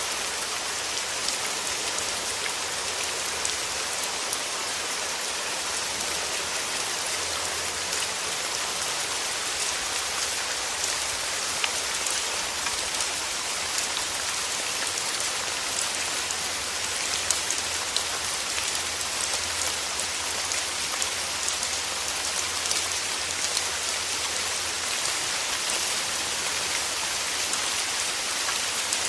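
Steady rain falling, an even hiss with many small drop ticks throughout.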